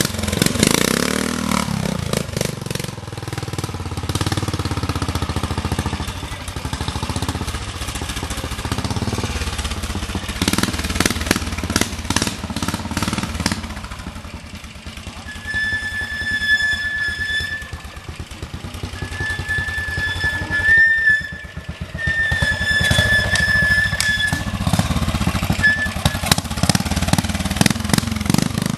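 Vintage trials motorcycle engine running, its revs rising and falling. In the second half a steady high whistle-like tone comes and goes several times, each time for a second or two.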